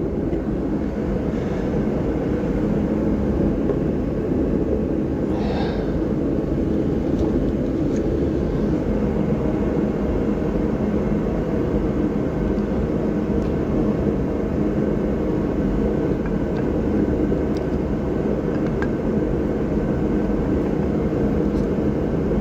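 A steady machine hum with low tones, unchanging throughout, over faint metal clicks and taps from brake pads being worked into a brake caliper, the clearest about five seconds in.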